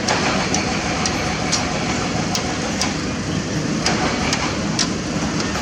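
Heavy diesel construction machinery running steadily, with sharp metallic clicks about twice a second over the engine noise.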